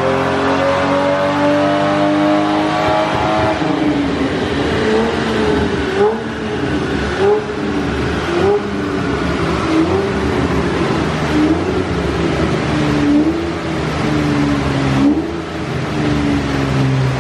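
1971 Jaguar E-Type's 5.3-litre V12 on a chassis dyno power run: the engine climbs steadily in pitch under full load for the first few seconds, then backs off and runs down with a series of short rises and dips in revs.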